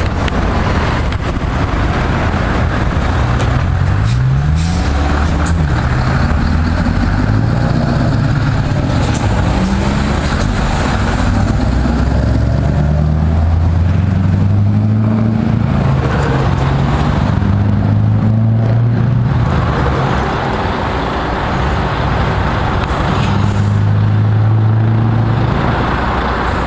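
Scania 164 580's V8 diesel engine through a straight-pipe exhaust, pulling away and accelerating. Its revs climb and fall back several times over.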